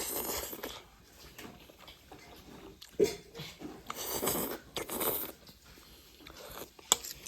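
A person eating close to the microphone: irregular chewing and biting noises, with a sharp click about three seconds in and another near the end.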